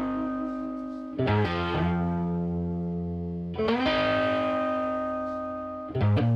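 Background music: distorted guitar chords, each held and slowly fading, with a new chord struck about every two and a half seconds.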